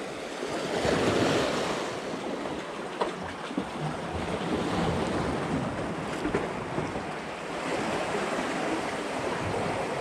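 Sea surf washing and breaking over the boulders of a rock breakwater, swelling about a second in, with wind buffeting the microphone.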